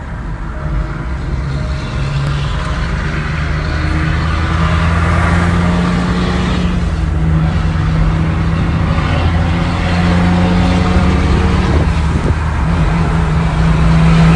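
Semi-truck diesel engine running, steady in pitch and growing louder over the first few seconds and again near the end.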